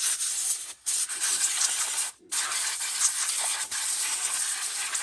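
Compressed air hissing out of an air-hose blow nozzle as a chainsaw is blown clean. A loud steady hiss that cuts off briefly about a second in and again just after two seconds, then stops near the end.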